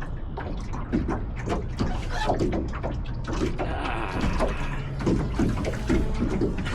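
Water lapping and splashing irregularly against the hull of a Flying Scot sailing dinghy, over a low steady rumble, with faint voices now and then.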